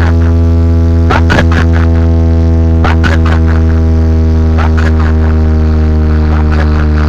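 A DJ sound system's speakers playing one loud, steady low bass drone with a stack of overtones, held without a break.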